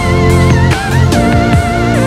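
Background music: a wavering lead guitar melody over bass and drums.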